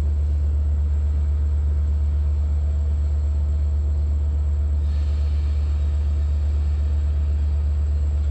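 EMD DE30AC diesel locomotive idling at a station: a steady low rumble, with a faint hiss joining about five seconds in.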